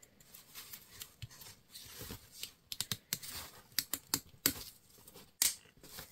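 Light, irregular clicks and scraping taps of a 3D-printed PLA bottom cap being pressed and worked onto a plastic balm container by hand, with a few sharper clicks in the second half.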